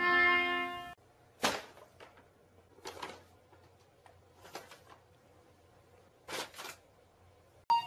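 A brown paper bag crinkling in several short, separate rustles a second or two apart as a cat walks about inside it. Before that, a loud, steady pitched voice-like note cuts off about a second in.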